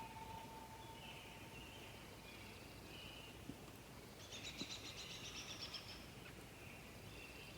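Faint calls of wild animals: short high chirps repeating every second or so, a fast pulsing trill about four seconds in, and the end of a long steady call fading out in the first second.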